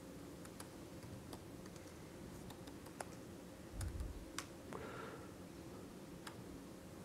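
Typing on a MacBook laptop keyboard: faint, scattered keystroke clicks, with one dull low thump about four seconds in.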